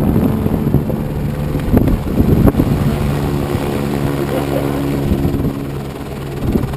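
Helicopter flying past close by, its rotor and engine sound settling into a steady hum from about three seconds in, over low rumbling wind buffeting on the microphone.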